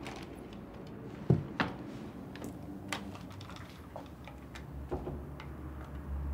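Soft clicks and knocks of small objects being handled, the loudest a dull knock a little over a second in, over a low steady hum.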